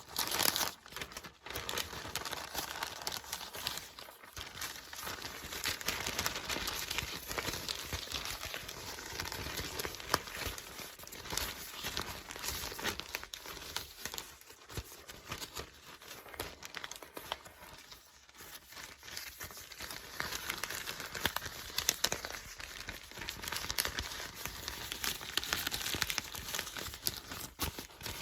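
Paper book pages being turned and flipped: a continuous papery rustle with many small, crisp flicks.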